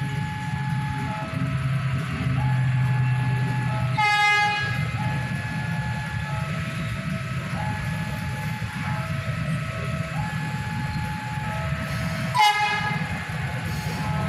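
Two short train horn blasts, about four and twelve seconds in, over the low rumble of a train. A steady two-tone warning signal alternates between a higher and a lower note throughout.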